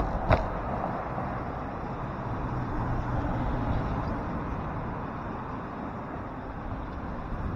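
Cars and trucks driving past in cross traffic: a steady mix of engine and tyre noise, with one sharp knock just after the start.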